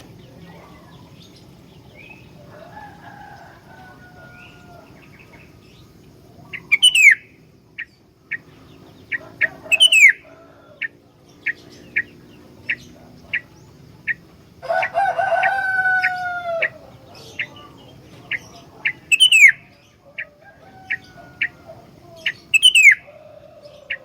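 Sooty-headed bulbul (kutilang) singing: loud, quick falling whistled phrases several times, between short sharp notes about every half second. A rooster crows for about two seconds in the middle.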